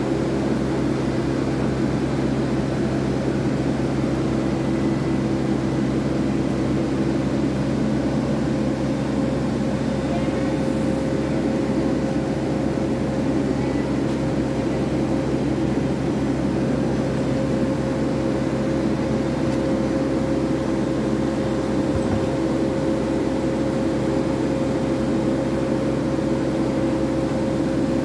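Steady machinery hum that does not change, with a few constant low tones over a background rush.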